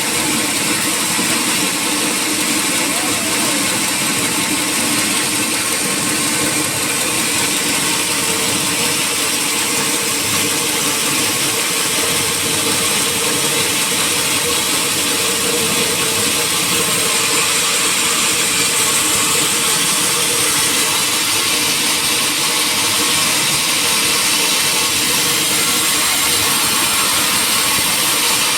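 Sawmill machinery running steadily: a continuous loud, hissing mechanical din with no breaks or distinct knocks.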